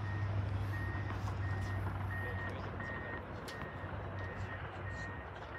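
A vehicle's reversing alarm beeping steadily at one high pitch, about three beeps every two seconds, over a low steady hum.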